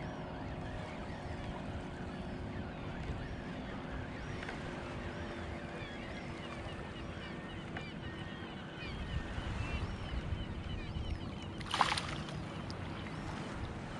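A hooked summer flounder (fluke) thrashing at the surface of shallow water as it is reeled in to the angler. The water gets noisier about three-quarters of the way through, and a single sharp splash comes near the end, over steady wind and lapping water.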